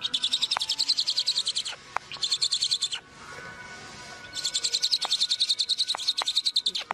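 A bird's fast, high chirping trill, about ten chirps a second, in three bouts with short pauses between them. A few sharp clicks fall in the gaps.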